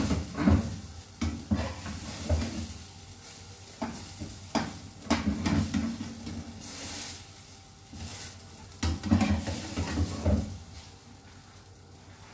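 A spatula scraping and stirring food in a nonstick frying pan in irregular strokes, over a faint sizzle of frying. The food is not yet cooked through.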